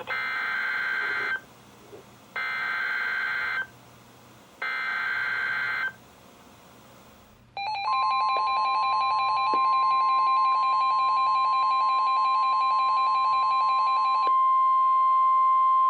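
NOAA Weather Radio EAS/SAME alert for a Severe Thunderstorm Warning: three short bursts of warbling digital header data, each about 1.3 s long with short gaps. About halfway in, the steady 1050 Hz warning alarm tone starts and runs on, with other steady and beeping alert tones from the receivers sounding along with it.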